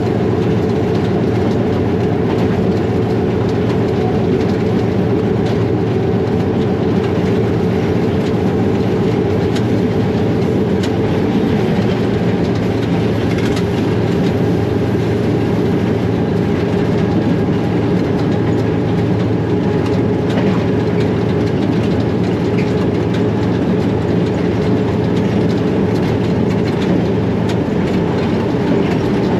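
Cab of a moving ALCO diesel-electric locomotive: the diesel engine drones steadily, with scattered sharp clicks of the wheels over rail joints.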